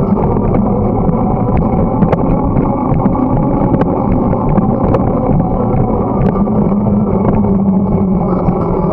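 Steady wind rush on the microphone and tyre rumble from a bicycle riding along a paved path, with scattered light clicks and rattles from the bike.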